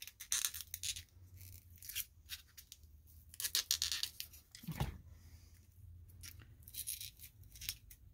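Utility knife blade scraping and cutting around a soft, freshly cast resin piece to work it loose from foam, in short scratchy strokes, with a dull knock about halfway through.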